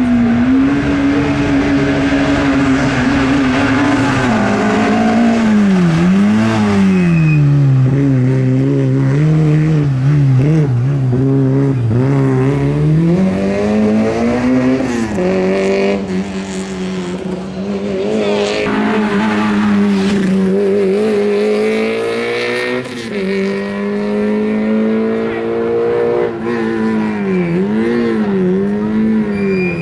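Rally car engine running hard at high revs for a long stretch, its pitch dropping and climbing again several times as the driver lifts off and shifts gear.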